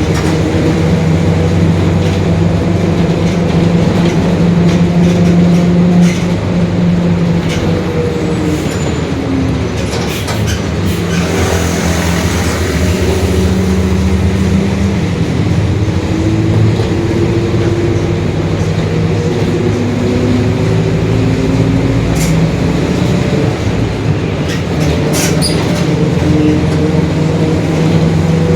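Mercedes-Benz OF-1721 city bus heard on board, its four-cylinder diesel running under way. Over it the differential growls with a whine that rises and falls in pitch as the bus speeds up and slows. A few short rattles come through from the body.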